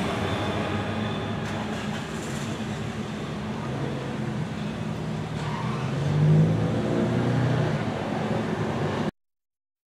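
Street traffic: car and motorcycle engines running and moving off, with the rumble of a passing freight train. One engine revs up briefly about six seconds in, the loudest moment. The sound cuts off abruptly about nine seconds in.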